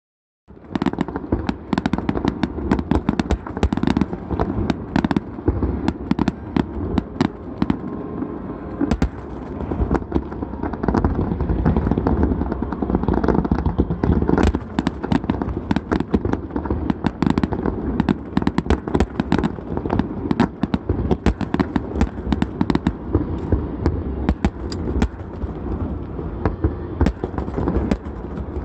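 Fireworks finale barrage: a dense, unbroken run of shell bursts, booms and crackling reports overlapping one another.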